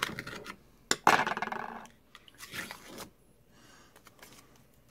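Knife splitting and tearing the foil seal on a glass jar of cookie butter: a sharp click about a second in, then crinkling and scraping of the foil, with another scratchy patch a little later.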